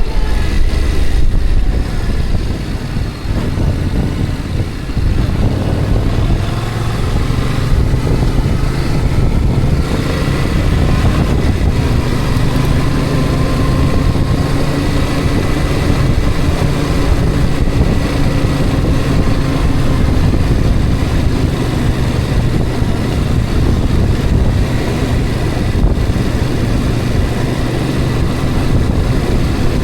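A road vehicle driving steadily: continuous engine and road noise, loud and even, with a faint steady engine tone.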